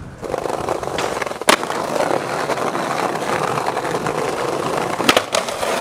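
Skateboard wheels rolling over paving with a steady, gritty rolling noise. There is a sharp clack about a second and a half in and a couple more clacks near the end.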